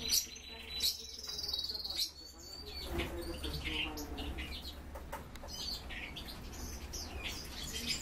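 Several small caged finches chirping and calling, with a high buzzy trill held for about two seconds at the start, then scattered short chirps.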